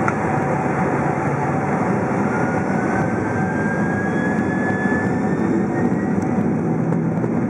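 Boeing 767-400ER's jet engines running, heard from inside the passenger cabin as a steady rushing hum. A faint whine rises slowly in pitch through the middle.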